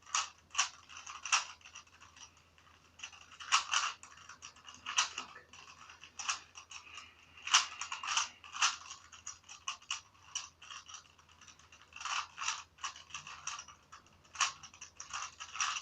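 Plastic Rubik's Cube, a Walmart cube modded to turn like a speed cube, being turned by hand in a solve: quick, irregular clicks and clacks as the layers snap round, in uneven flurries.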